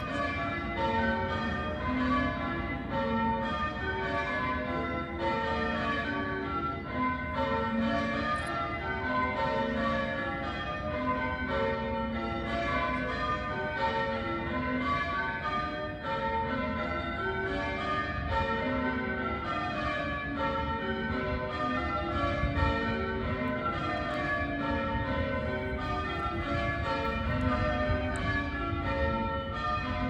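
Church bells being change-rung, one bell striking after another in a continuous, even stream of overlapping ringing tones.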